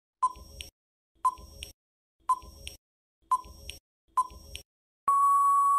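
Quiz countdown timer sound effect: five short beeps about a second apart, then one long steady beep as the count reaches zero.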